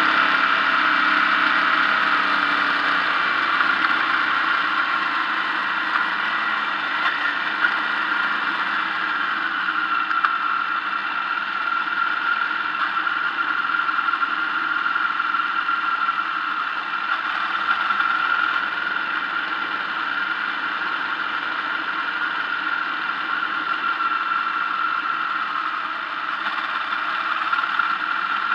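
Car engine and road noise heard inside the cabin while driving, with a steady high whine over it; the engine note shifts about three seconds in, then holds steady.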